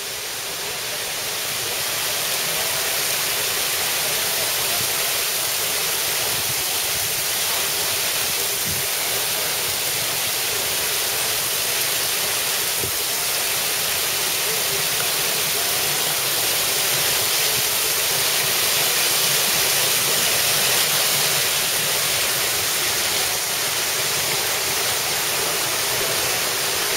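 Stream water rushing, a steady even hiss that holds throughout.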